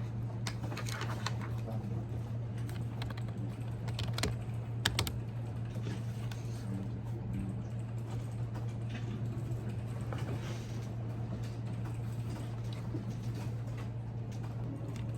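Typing on a computer keyboard: irregular key clicks, a few sharper ones about four and five seconds in, over a steady low hum.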